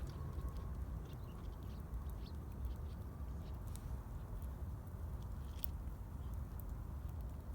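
Campfire wood crackling with scattered irregular pops, over a steady low rumble.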